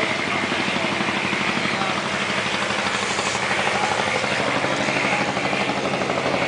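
A motor running steadily with a fast, even throb.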